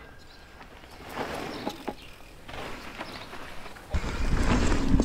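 Light rustling and a few clicks, then about four seconds in a sudden steady rumble of a mountain bike's tyres rolling over the dirt trail, with wind on the microphone.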